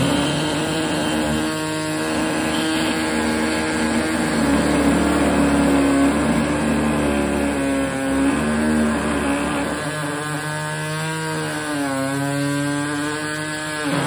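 Electric grinder running on car body work, a steady motor whine whose pitch sags and recovers several times in the second half as it is pressed into the work. It cuts off near the end.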